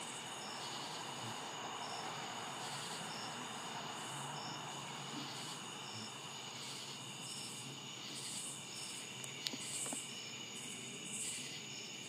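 Evening insect chorus: a steady high trilling of crickets, with higher chirping pulses from other insects repeating a little over a second apart. A light click comes about nine and a half seconds in.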